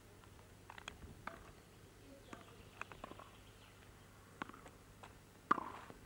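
Tennis ball being struck by rackets and bouncing on a hard court during a rally: scattered sharp knocks, irregularly spaced, the loudest near the end.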